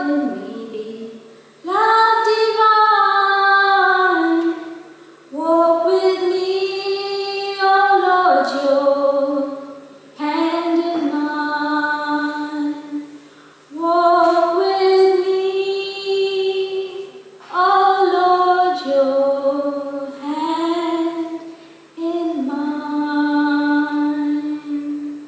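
A woman singing a slow devotional song unaccompanied, in held phrases of a few seconds each with short breaths between.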